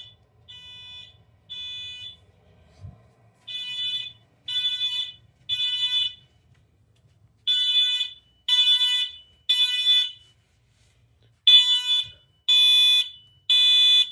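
Wheelock MT multitone fire alarm horn sounding the code-3 (temporal-three) evacuation pattern: groups of three short, shrill beeps separated by a pause, repeating. It gets louder after the first group.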